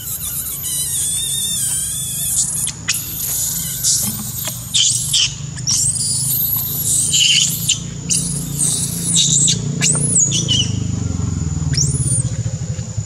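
Young long-tailed macaque screaming in distress: a long run of shrill squeals that rise and fall in pitch, stopping about a second before the end.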